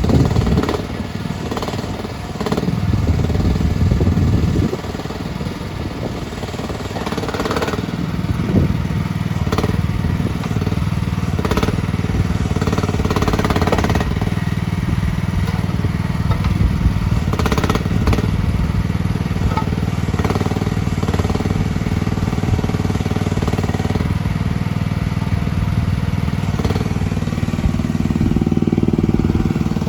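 CFG KT13R mini excavator's engine running steadily while the machine is operated, with occasional clanks and knocks several times.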